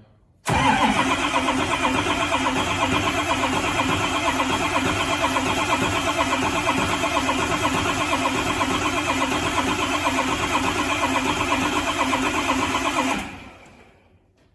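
Ford 6.0 Power Stroke turbo-diesel V8 running steadily, coming in suddenly and dying away over about a second near the end as it shuts off.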